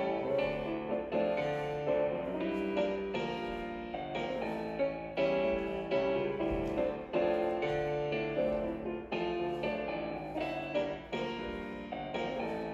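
Piano music accompanying a ballet barre exercise, with notes struck one after another in a steady pulse.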